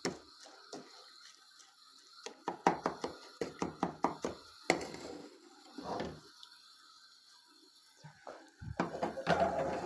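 A fork scraping and tapping against a small saucepan while sugar is stirred as it melts. The strokes come in scattered clicks at first, then fall quiet for a couple of seconds, then a quick run of rapid scrapes starts near the end.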